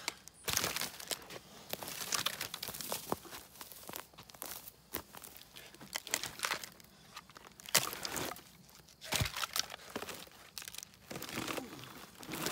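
Footsteps crunching over dry grass and brush, with crackling and scraping as cut log sections are grabbed and moved by hand; a sharp knock about two-thirds of the way in.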